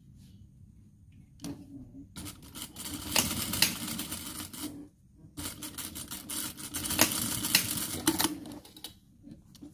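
Sewing machine stitching fabric: two runs of fast, even needle clatter, the first starting about two seconds in and the second after a brief stop about five seconds in.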